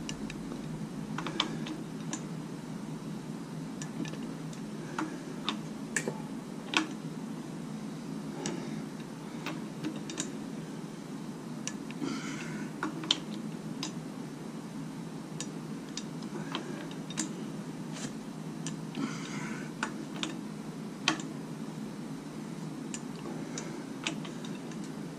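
Socket wrench clicking on a crankshaft bolt as it is run down into the harmonic balancer: scattered sharp metal clicks and two short runs of ratchet clicking, over a steady low hum.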